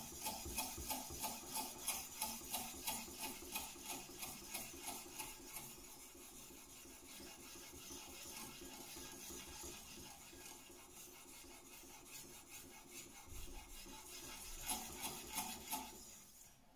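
Sharpening stone stroked along a steel knife edge on a guided sharpening system: a rhythmic wet scraping, about two to three strokes a second, softening in the middle and picking up again near the end.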